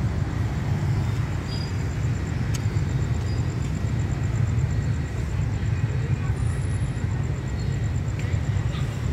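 Steady low rumble of distant road traffic, with a faint, fast, high-pitched ticking repeating evenly over it.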